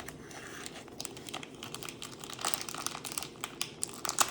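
Wrapper of a small sealed prize packet crinkling as it is handled and pulled at in an attempt to open it, with irregular sharp crackles.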